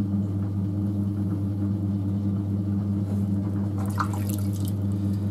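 Electric potter's wheel motor humming steadily while wet hands work spinning clay, with a short wet splash about four seconds in as a hand dips into the wheel's splash pan.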